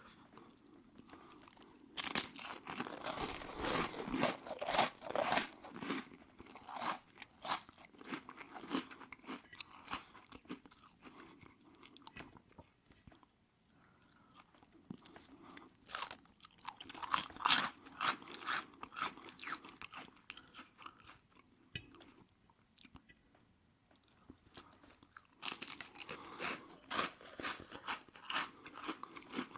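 Close-miked ASMR eating: wet bites and chewing of aubergines in sunflower oil, in three bouts of dense smacking and crunching about 2, 16 and 25 seconds in, with quieter chewing between.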